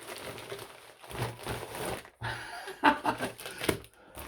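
Parcel wrapping rustling, crinkling and tearing in uneven bursts as it is pulled open by hand.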